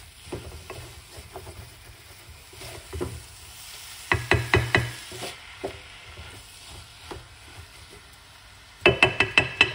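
Wooden spoon stirring cauliflower rice in a metal pot over a low, steady sizzle, with quick runs of scraping knocks against the pot about four seconds in and again near the end.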